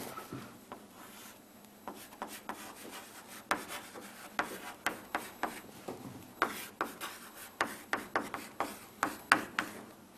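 Handwriting: a run of short, irregular scratching strokes of a pen on a writing surface, a few strokes a second.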